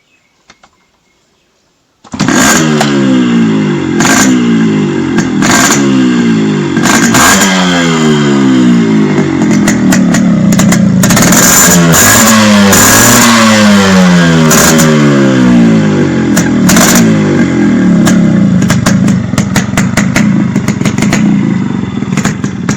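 Yamaha RX100's two-stroke single-cylinder engine with a racing-core silencer firing up about two seconds in, then revved hard again and again, each rev rising in pitch, with sharp crackles from the exhaust. It drops back toward idle near the end.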